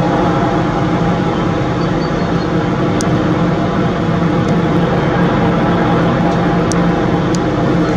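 Loud, steady mechanical drone: a constant low hum with even overtones and no rise or fall. It is the noise the filmer keeps hearing without seeing its source. A few faint clicks sound in the second half.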